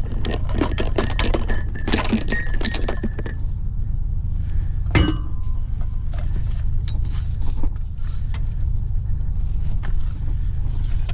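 Metal fittings on mooring lines clinking and ringing against the bow hardware of a sailboat as the lines are made fast, with a run of quick clinks in the first few seconds and one sharper ringing knock about halfway through. A steady low rumble runs underneath.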